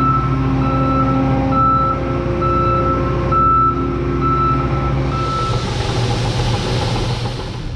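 Combine engine running steadily under a back-up alarm beeping a little over once a second; the beeping stops about two-thirds of the way through, and a hiss swells near the end.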